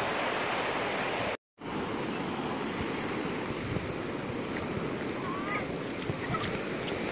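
Small waves washing onto a sandy beach, a steady surf rush, with wind on the microphone. The sound cuts out briefly about a second and a half in, then the surf resumes.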